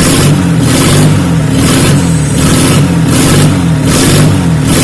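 Nissan RD28 2.8-litre six-cylinder diesel engine running on a test stand. Under the steady engine sound, a hissing pulse repeats a little under twice a second.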